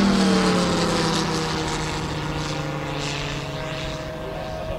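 Moki radial engine of a large RC F4U Corsair model running in flight as the plane passes overhead: its pitch drops during the first second and the sound then slowly fades as it flies away.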